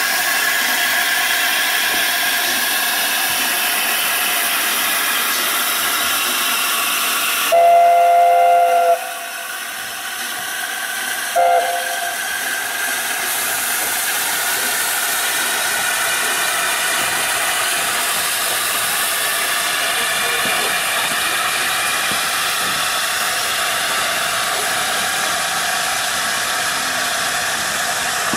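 Steam train with teak coaches rolling past with a steady rushing hiss. About a third of the way in a chime whistle blows loudly for about a second and a half as a two-note chord, then gives a short second blast a couple of seconds later.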